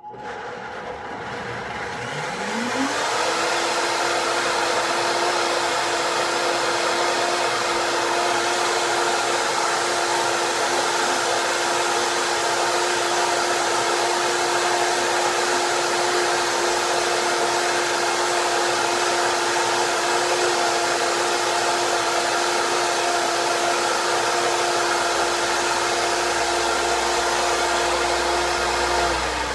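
High-speed countertop blender blending walnuts and water into nut milk. The motor spins up over the first couple of seconds, runs at a steady high pitch, and starts to wind down at the very end.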